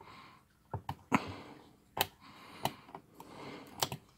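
Small tool picking and prying at an SD card stuck in its slot on a circuit board: a string of irregular sharp clicks with light scraping between, as the card refuses to come out.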